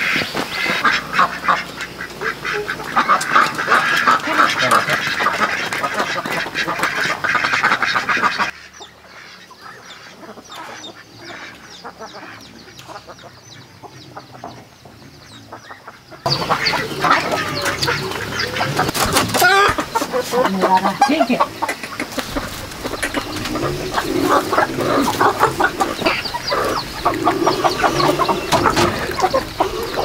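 Farmyard ducks quacking and chickens clucking, many calls overlapping. The sound drops to a much quieter stretch for several seconds in the middle, then the calls come back.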